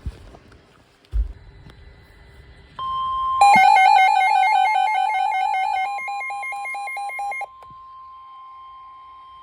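Weather radio warning alert: a steady single-pitch alarm tone near 1 kHz starts about three seconds in and holds to the end. For about four seconds it is overlaid by a louder alarm beeping back and forth between two pitches. A low thump comes about a second in.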